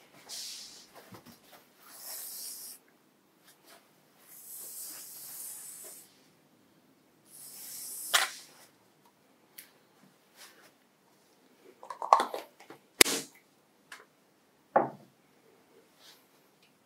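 Aerosol can of shaving foam hissing in four short bursts as foam is sprayed out. In the second half come a few short, sharp clicks and knocks, one of them louder than the rest.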